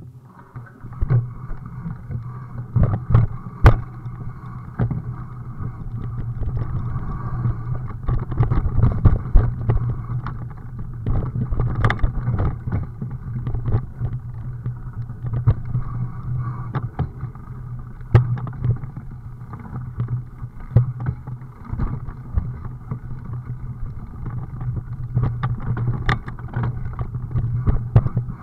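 Muffled ride noise of a vehicle-mounted camera going over a rough dirt trail: a steady low rumble with frequent knocks and rattles as the wheels hit bumps and stones.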